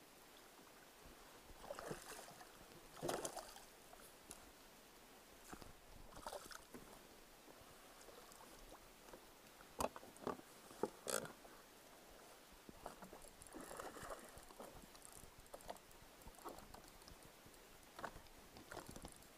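Quiet splashing and handling sounds of a fish being landed into a plastic fishing kayak with a landing net, with a few sharp knocks about ten and eleven seconds in.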